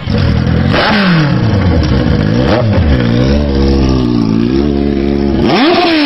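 Kawasaki Z1000's inline-four engine through a megaphone exhaust, being revved. The pitch drops off, jumps up and falls again, then wavers. Near the end it cuts to another motorcycle engine whose pitch climbs and drops.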